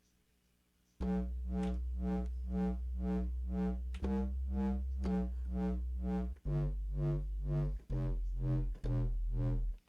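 Native Instruments Massive X software synthesizer playing its "Burn the Speaker" bass preset: a deep sub-bass under a buzzy tone that throbs about three times a second. It starts about a second in and changes note several times.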